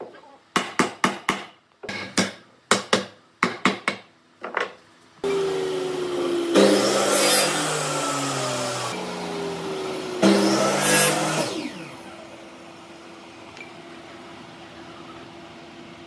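A run of sharp knocks, about a dozen in quick groups, then an electric power tool's motor starts about five seconds in and runs loudly for about seven seconds, with a slight dip in pitch. It then drops to a quieter steady hum.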